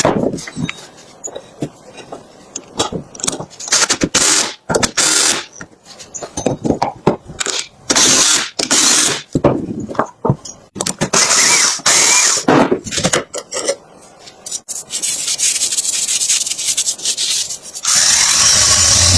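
Workshop noise: irregular short bursts of a power tool with quiet gaps between them. Near the end a small engine starts and runs steadily.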